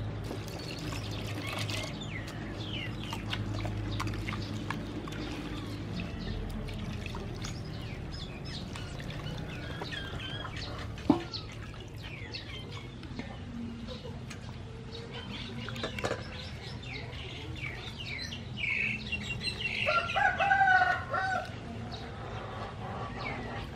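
Chickens: a rooster crows for about two seconds near the end, the loudest sound, with clucking and small birds chirping before it. Underneath is the quiet sloshing of hands washing shredded green papaya in a bowl of water, with one sharp click about eleven seconds in.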